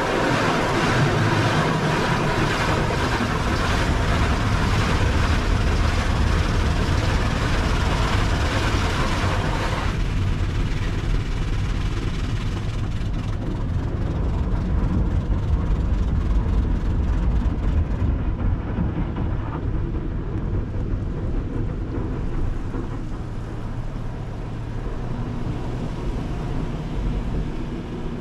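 Automatic car-wash spray pelting the SUV's body and glass, heard from inside the cabin as a dense hissing roar. About ten seconds in the spray drops away sharply and thins out further later on, leaving a steady low rumble underneath.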